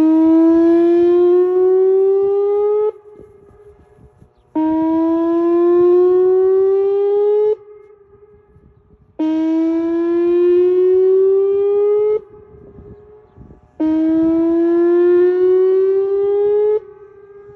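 Outdoor emergency warning siren sounding a test signal: four loud blasts of about three seconds each, each rising slightly in pitch and then cutting off abruptly. A fainter steady siren tone carries on in the gaps between blasts.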